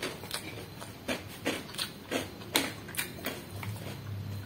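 Close-up eating sounds: a run of short, sharp clicks and smacks, about two a second, from a man chewing and scooping rice with a metal spoon.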